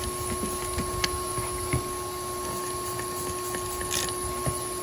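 Shop vac running with a steady whine, blowing air back through the exhaust so that it hisses out of the leaking exhaust manifold gasket. Scattered small clicks and a short spray hiss about four seconds in, as soapy water is sprayed on the front of the exhaust.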